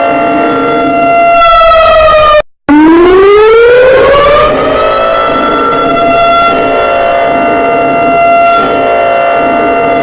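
Emergency alert alarm siren: a loud, steady wailing tone that falls in pitch, cuts out for an instant about two and a half seconds in, then glides back up and holds steady again, over a lower pulsing tone.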